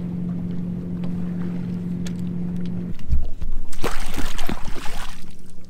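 Boat motor running with a steady hum, cutting off abruptly about three seconds in. A low thump follows, then a couple of seconds of loud, noisy splashing.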